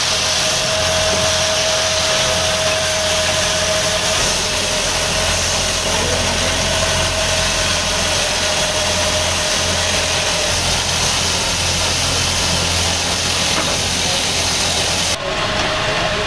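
Lathe running steadily, with a constant motor hum and whine, while sandpaper hisses against the spinning wooden cue shaft. About a second before the end the sound changes abruptly and the hiss drops away.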